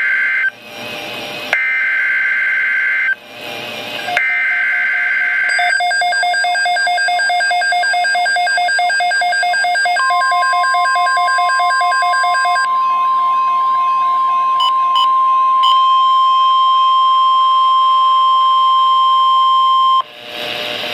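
NOAA Weather Radio emergency alert: three short screeching bursts of the SAME digital header, each about 1.5 s long, then a weather radio receiver's electronic alarm beeping. About halfway through, the steady 1050 Hz warning alarm tone joins it and holds for about ten seconds, then cuts off.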